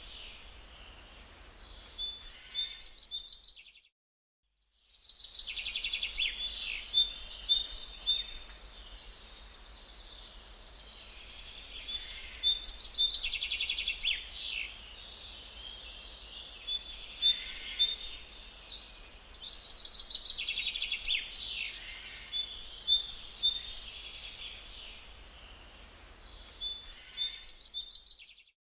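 Birds chirping and trilling in quick high-pitched bursts that come and go, with a sudden full break about four seconds in.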